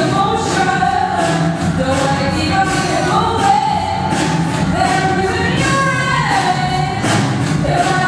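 A woman singing into a microphone over backing music with a steady beat, holding long notes that slide between pitches.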